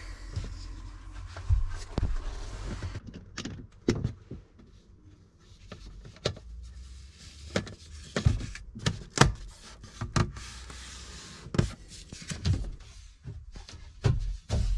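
Irregular knocks and thuds of hands-on building work in a small enclosed space, about a dozen sharp ones at uneven intervals, with a low rumble at the start.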